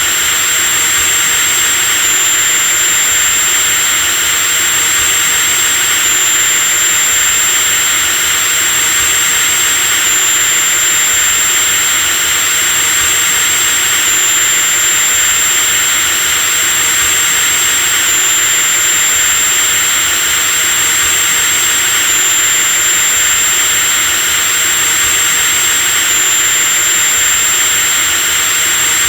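Electric drill motor running continuously at a steady speed: a loud, high-pitched whine over a hiss, with a slight pitch step about every four seconds.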